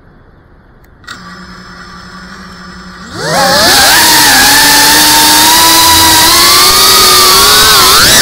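FPV quadcopter's brushless motors and propellers: about a second in the motors start spinning with a steady low hum, then about three seconds in the throttle comes up and they give a loud whine whose pitch slides up and down as the drone flies. Heard through the drone's own onboard camera microphone.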